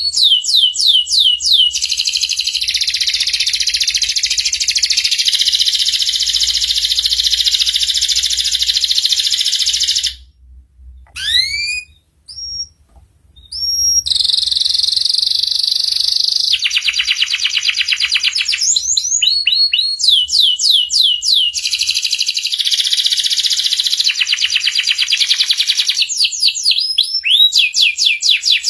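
Domestic canary singing in long, rapid rolling trills and runs of quick downward-sweeping whistled notes. The song breaks off for a few seconds near the middle, with only a few single chirps, then starts again.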